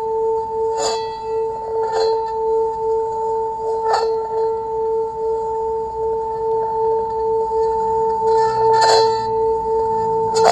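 A singing bowl ringing with a steady, evenly pulsing hum, struck lightly several times at uneven intervals.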